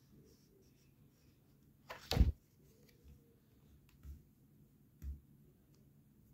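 A paperback picture book being closed and turned over: a sharp thud about two seconds in, then two softer knocks about a second apart.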